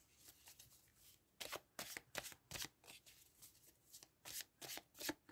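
A deck of tarot cards being shuffled by hand: a faint, irregular run of short papery slaps and swishes as cards are pulled through the deck.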